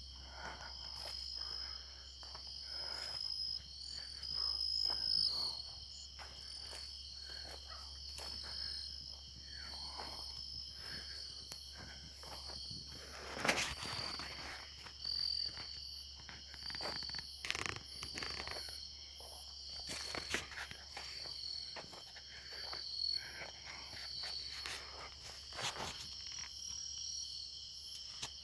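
Crickets and other night insects calling steadily, several overlapping high trills and pulsed chirps. Now and then there is a brushing rustle of leaves and a step or two close by.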